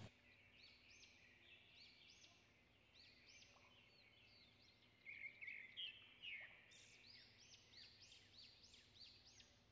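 Near silence with faint bird chirps in the background: short high rising-and-falling calls, sparse at first and coming about twice a second from about halfway through.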